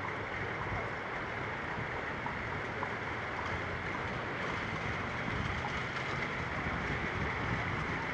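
Steady rush of river water flowing over a shallow riffle, an even hiss with no breaks.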